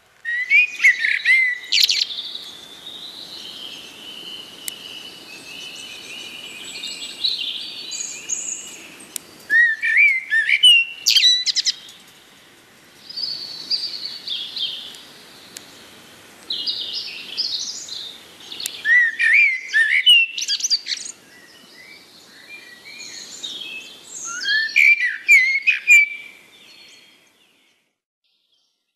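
A bird singing: a loud phrase of quick rising chirps comes back about every eight to nine seconds, with softer warbling between the phrases. It stops abruptly about a second and a half before the end.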